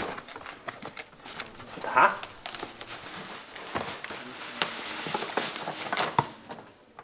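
Unboxing: cardboard box flaps handled and a plastic bag crinkling as a wrapped item is lifted out, with many scattered rustles and small knocks.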